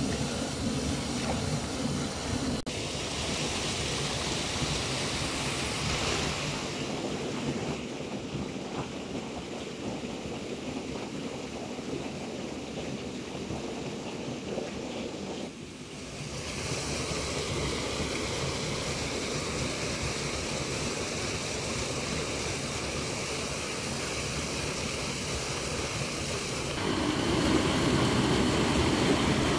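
Steady rushing water noise with a short dip about halfway through. Near the end it grows louder as muddy water pours over a small concrete spillway into a churning pool.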